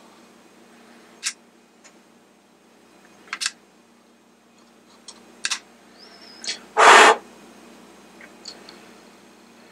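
Soldering wires onto the metal contact plate of a Mr. Christmas merry-go-round base: a scatter of sharp little clicks and short hisses, with one louder brief rush of noise about seven seconds in.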